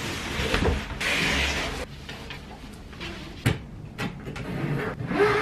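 A large hard-shell suitcase being slid out of its cardboard shipping box: a rushing scrape of cardboard for about two seconds, then a couple of sharp knocks as the case is handled and set down on the wooden floor.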